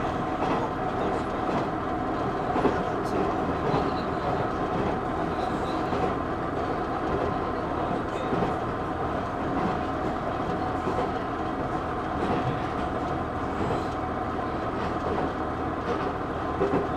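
KiHa 110 series diesel railcar running, heard from inside the car: a steady drone of engine and running noise, with occasional clicks of the wheels over rail joints.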